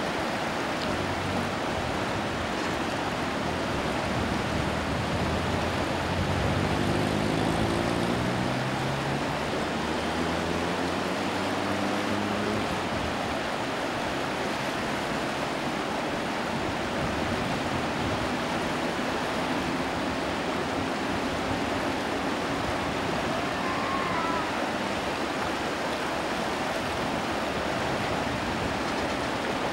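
Steady rushing of river water, with an engine running up slowly in pitch from about six to thirteen seconds in, then fading.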